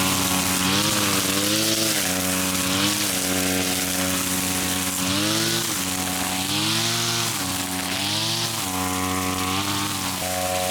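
Small petrol engine of a grass cutter running hard, its pitch dipping and recovering every second or two as it bogs under load in thick grass.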